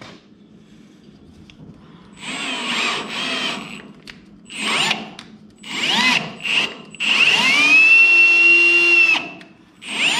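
Cordless drill driving a tap to thread holes in thin chassis tubing, run in several short bursts, then a longer run of about two seconds where the motor whine climbs in pitch and holds steady.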